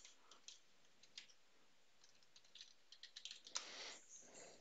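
Faint computer-keyboard typing: scattered soft key clicks, with one louder click a little past three and a half seconds in.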